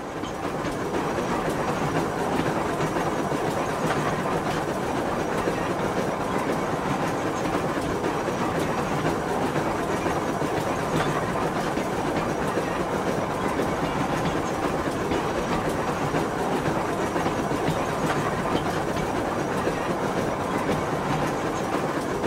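Train running sound: a steady rumble with rail clatter that fades in over the first second.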